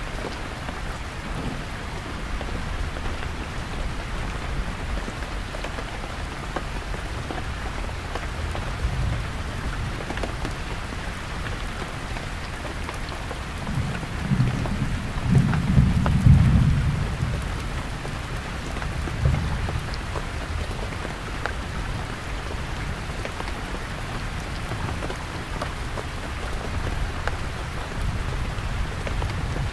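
Heavy rain falling steadily on a canvas tent, with scattered individual drop ticks. A deep rumble of distant thunder builds about halfway through and fades, with a smaller rumble soon after.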